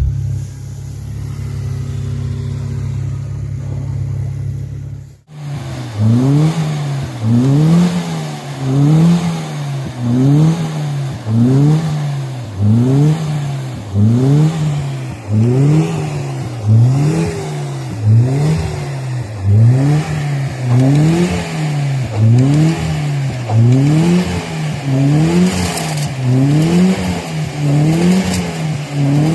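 UAZ Simbir engine running with a steady low drone that cuts off abruptly about five seconds in. It then surges up and down in a regular cycle about once a second, the revs rising and falling over and over.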